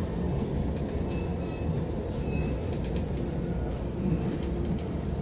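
Passenger train coach rolling along the rails, heard from inside the carriage: a steady low rumble with a few faint, brief high squeals.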